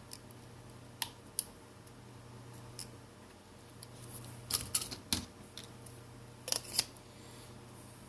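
Light, sharp plastic clicks and taps from handling a smartphone and its small parts: a few single clicks, then two quick clusters of clicks in the second half.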